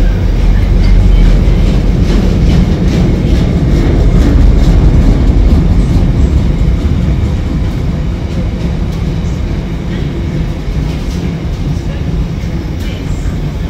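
Container wagons of a freight train rolling past: a steady, heavy rumble of steel wheels on rail with faint scattered clicks, easing a little in the second half.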